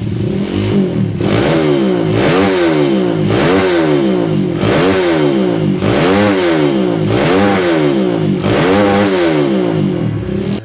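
Suzuki Satria FU motorcycle engine being revved over and over, its pitch climbing and falling back about once a second.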